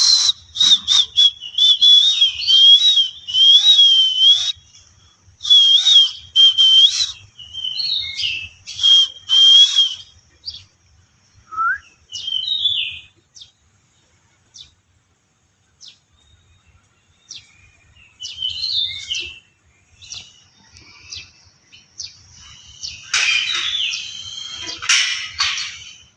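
Birds calling: a high, wavering whistled note over harsh chattering bursts for the first ten seconds or so, then scattered short chirps, and louder chattering near the end.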